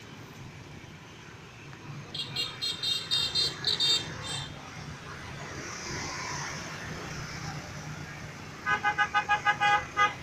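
Road traffic runs past with a steady hum, broken by two runs of rapid beeping horns. A high-pitched run starts about two seconds in, and a louder, lower-pitched run of about eight quick beeps comes near the end.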